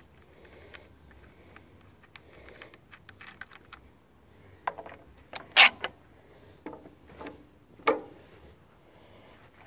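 Air cleaner being taken off a Briggs & Stratton 14 hp riding-mower engine by hand: a few faint ticks, then sharp clacks and rattles of the metal cover and filter being lifted off, the loudest about five and a half seconds in and another near eight seconds.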